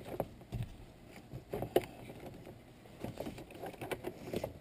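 Scattered light clicks and knocks of a plastic dash trim panel and its wiring connectors being handled and fitted into place.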